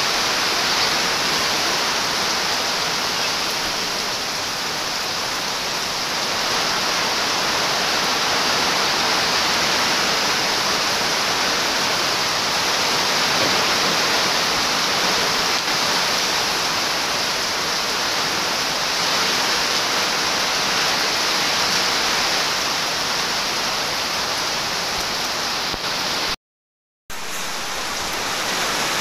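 Torrential rain pouring down, driven by strong wind, as a steady dense hiss. It drops out briefly for under a second near the end.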